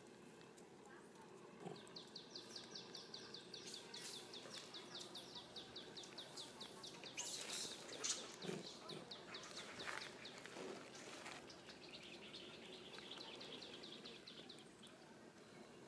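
Faint, rapid chirping: a long run of short, high, falling chirps at about six a second, then a softer second run near the end. A few brief rustling clicks come in the middle.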